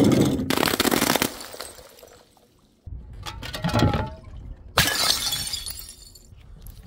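Glass bottles smashing: three sharp breaks, each followed by a decaying clatter and tinkle of falling shards, with a short near-silent gap before the second.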